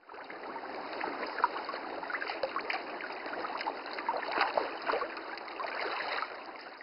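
Water splashing and trickling: a steady rush dotted with many small splashes and drips, fading in at the start.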